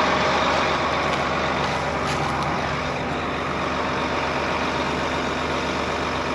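John Deere 8235R tractor's engine running steadily, an even mechanical drone.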